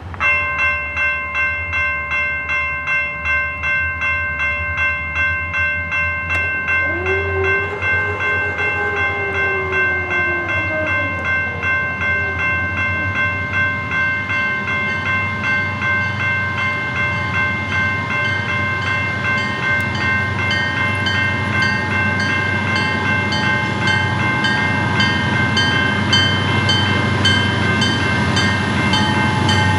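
A grade-crossing bell starts suddenly and rings about twice a second. From about six to eleven seconds in, a locomotive horn gives a wavering blast whose pitch rises and then sags; this is the oddly behaving Nathan M3 air horn on Pan Am Railways' lead unit 352. Under both, the diesel rumble of the approaching train grows louder.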